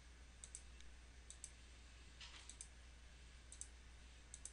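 Faint computer mouse clicks: five pairs of quick clicks, about one pair a second, over a low steady hum.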